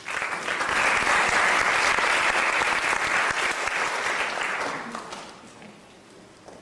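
Audience applauding. It starts all at once, stays at full strength for about four seconds, then dies away about five seconds in.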